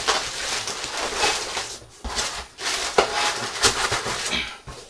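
Packaging being handled: irregular rustling and crackling, with a few sharp crackles.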